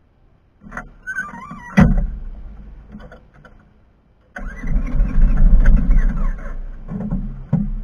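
A car engine starting and running with a strong low rumble, after a sharp knock about two seconds in.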